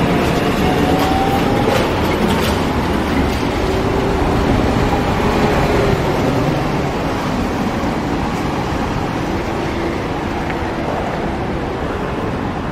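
Steady street traffic noise from passing vehicles, with a faint rising whine about a second in.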